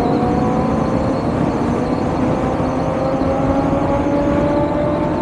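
Motorcycle engine under steady acceleration at highway speed, its pitch climbing slowly and evenly, over heavy wind rush on the helmet-mounted microphone.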